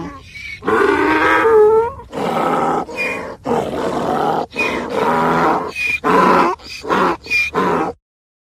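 Donkey braying: one long call, then a run of shorter hee-haw calls about half a second apart that stop suddenly near the end.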